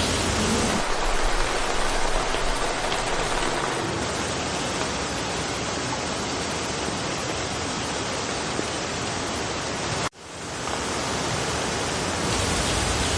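Steady rain falling in a forest, an even hiss of many drops. About ten seconds in, the sound cuts out abruptly for an instant and fades back in.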